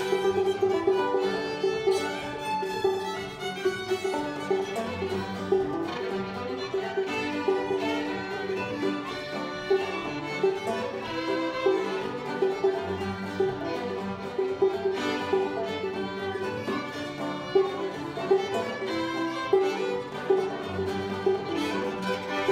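Old-time string band playing an instrumental tune: two fiddles bowing the melody over banjo and acoustic guitar.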